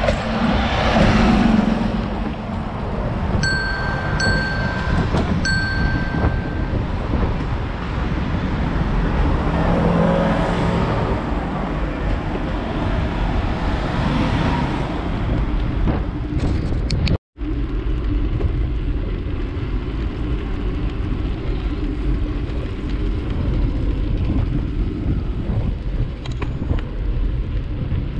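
Wind buffeting the microphone of a bicycle rider, a steady heavy rumble, with three short electronic chime tones a second apart near the start and a split-second dropout about two-thirds through.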